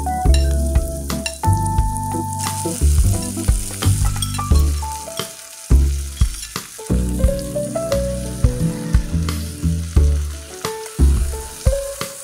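Sliced bottle gourd sizzling as it fries in hot oil with sautéed onions in a pot, with scattered clicks from the pieces and stirring. The sizzle thickens a couple of seconds in. Background music with a bass line plays throughout.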